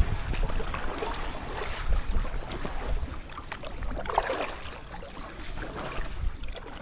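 Inflatable kayak being paddled along a canal: light paddle splashes in the water over a low rumble of wind on the microphone.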